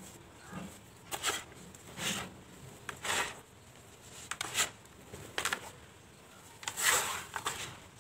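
Hands scooping up dry powdery dirt and letting it pour and crumble back into the bowl: about six soft, hissing pours, roughly a second apart, with the last one the longest.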